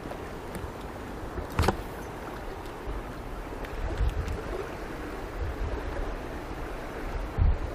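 Shallow river water running steadily over stones. A sharp knock comes about a second and a half in, and dull low bumps come around four seconds and again near the end.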